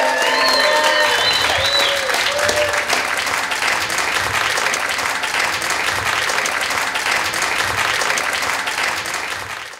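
A room of guests applauding steadily, with a few raised voices in the first couple of seconds; the applause fades out at the very end.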